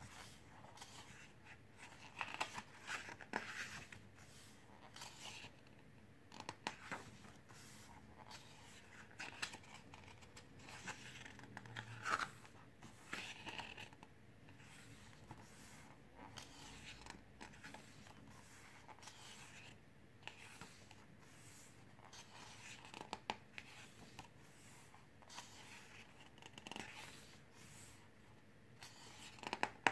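Pages of a photobook being turned by hand one after another: faint paper swishes and rustles every couple of seconds.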